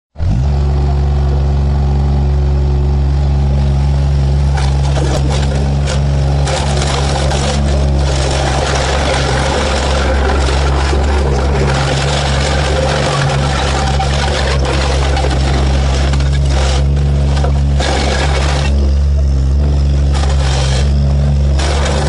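L&T Case road roller's diesel engine running steadily, with glass bottles cracking and crunching under its steel drum; the breaking glass is thickest from about six seconds in until near the end.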